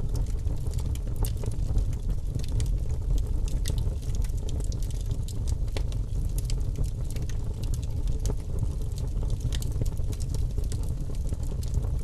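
Title-animation sound effect: a steady low rumble with scattered sharp crackles and pops throughout.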